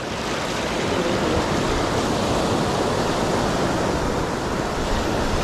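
Steady rushing noise of surf with wind on the microphone.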